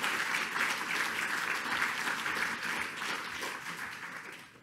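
Audience applauding, a dense patter of many hands clapping that fades out near the end.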